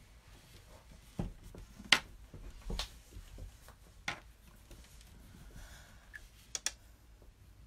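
Scattered light taps and clicks of art supplies, a paintbrush and marker, on paper and a tabletop during colouring. There are about half a dozen of them, with the sharpest click about two seconds in and a quick double click near the end.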